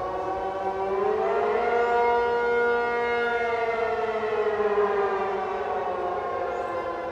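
Air-raid warning siren wailing as a chord of several tones. Its pitch rises about a second in, holds briefly, then slowly falls over the next few seconds.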